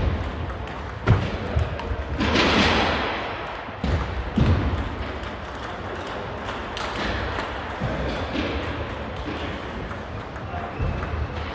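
Table tennis rally sounds: the plastic ball clicking off bats and the table, with a few dull thuds near the start, about a second in and around four seconds in. A louder rush of noise comes about two seconds in.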